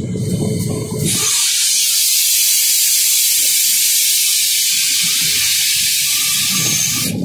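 Loud, steady hiss of compressed air venting in the cab of an RGE-20 diesel locomotive, typical of the air brake being applied. It starts suddenly about a second in over the engine rumble and cuts off sharply after some six seconds.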